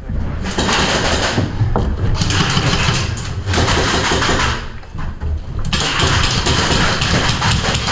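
Bursts of full-auto airsoft gunfire, four rough rattling volleys about a second long each with short gaps between them, laid down as suppressing fire.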